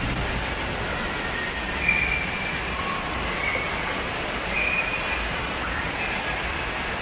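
Steady rushing of water pouring down a water slide's channel, blended with the constant water noise of an indoor water park hall.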